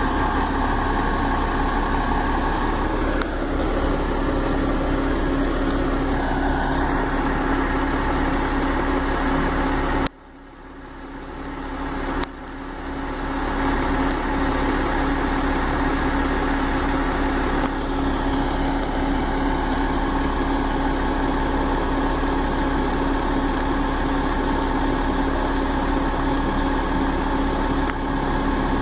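Ford 7.8-litre six-cylinder diesel engine of a crane truck idling steadily. The sound drops out abruptly twice, about ten and twelve seconds in, and fades back up each time.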